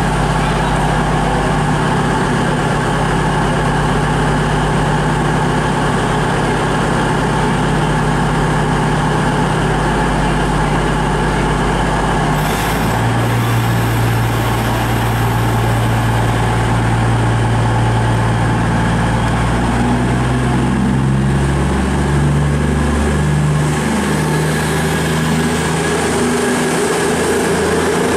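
A train running with a steady low hum. About twelve to thirteen seconds in there is a short hiss and the hum drops in pitch. In the last third the hum steps up and down in pitch several times.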